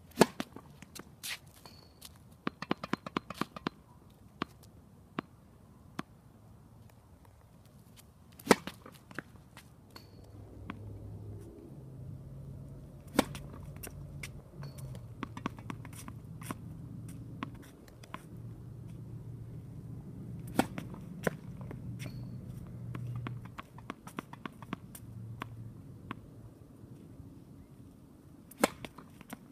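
Tennis racket striking the ball, sharp single pops several seconds apart, with a quick run of lighter knocks about three seconds in. A low steady rumble underlies the middle stretch.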